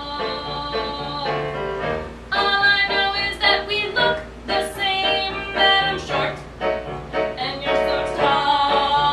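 Music: a singing voice holding pitched notes over instrumental accompaniment with a steady bass line.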